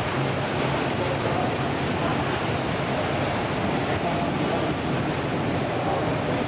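Steady, even wash of indoor swimming-pool ambience: water noise echoing in the pool hall, with faint voices in the background.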